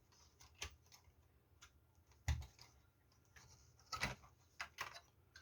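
Light clicks and knocks of a power supply circuit board being unclipped from its plastic clips and handled in a TV's One Connect box, with louder knocks about two seconds in and around four seconds.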